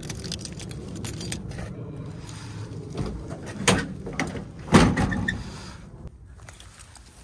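Keys jangling and latch clicks as the rear hatch of a pickup canopy on a 2007 Toyota Tacoma is unlocked and lifted, then the tailgate latch clicks and the tailgate drops open with a loud clunk about five seconds in.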